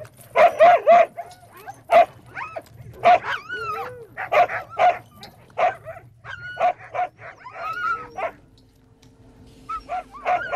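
A pack of sled dogs barking, yelping and yipping excitedly, many short calls tumbling over one another with pitch sliding up and down, at feeding time while lumps of seal blubber are handed out. The barking drops away briefly near the end, then a few more yelps.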